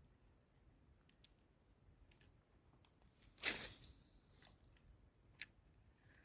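A short splash in the water about halfway through, starting suddenly and dying away within a second, with a single sharp click near the end.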